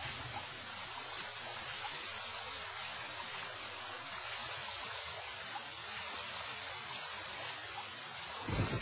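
Steady hiss of rain falling, with faint scattered pattering. A low rumble joins near the end.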